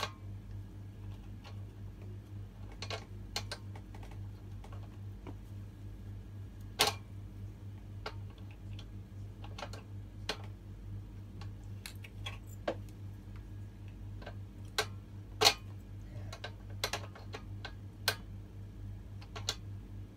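Irregular clicks and taps of a screwdriver working a bolt into a metal desk frame, with a couple of sharper knocks, over a steady low hum.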